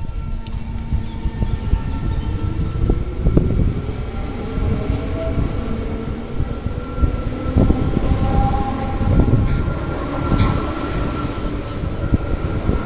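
NS SGMm Sprinter electric multiple unit pulling out of the station past the platform: a steady rumble of wheels on rail with an electric motor whine, in several held tones that shift as it gathers speed.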